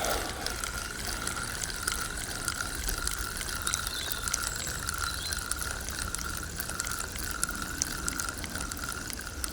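Fishing reel being wound in, giving a steady whirring from its gears with a gentle wobble about twice a second as the handle turns.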